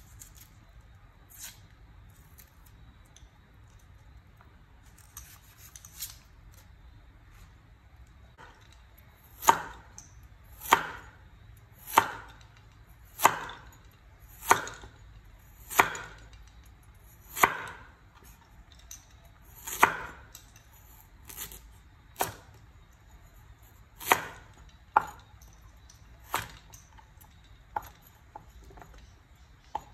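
A steel cleaver slicing through carrot rounds and striking a wooden chopping board: sharp, separate chops about once every second or so, starting about a third of the way in, after a few seconds of faint light handling sounds.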